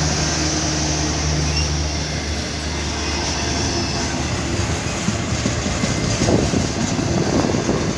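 Moving freight train, loud. A steady low engine hum in the first couple of seconds gives way to rumbling rail noise, with irregular clattering from the cars near the end.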